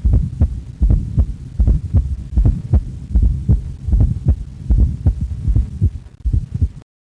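Auscultated heart sounds with a fourth heart sound (S4): low thumps in close groups, an extra beat just ahead of each first heart sound, giving a steady galloping rhythm of about 75 beats a minute. They stop abruptly near the end.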